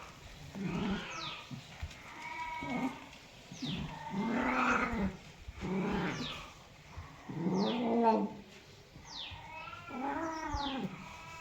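A cat meowing repeatedly, about six separate meows each rising then falling in pitch, a second or two apart.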